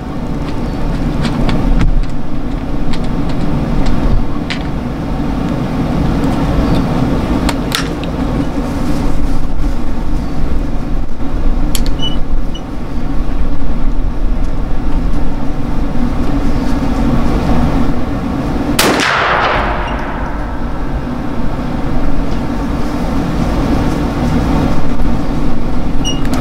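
A steady low drone, like a running motor, with light clicks of a ramrod working in a muzzleloader pistol's barrel. About three-quarters of the way through, one sharp bang rings off with a falling tail.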